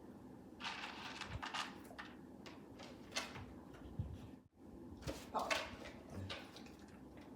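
Repeated hiccups: short, sudden hics about two and a half seconds apart, three in all, with breathy noise around them.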